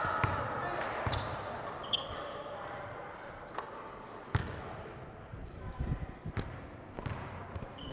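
A basketball bouncing on the court at irregular intervals during play, with short, high sneaker squeaks in between.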